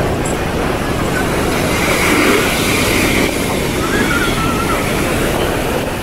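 Beach ambience: surf washing up the sand over a steady low rumble, with faint distant voices. The wash swells to a brighter hiss a couple of seconds in.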